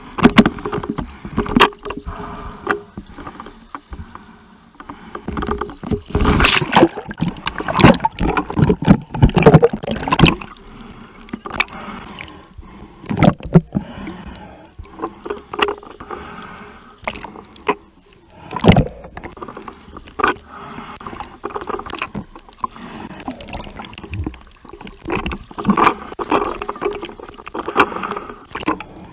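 Sea water splashing and sloshing in irregular bursts as a person swims through it, with a stretch of heavy splashing a few seconds in and single sharp splashes later.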